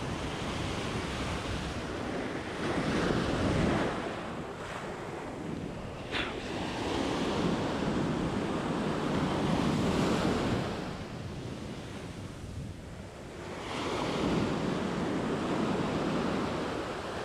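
Ocean surf breaking and washing up the sand at the water's edge, swelling three times as waves roll in, about three, eight to ten, and fourteen seconds in.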